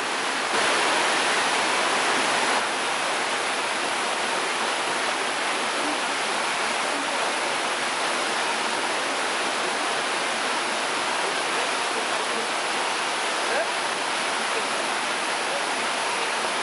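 Whitewater rapids rushing steadily over and around boulders, a little louder for about two seconds near the start.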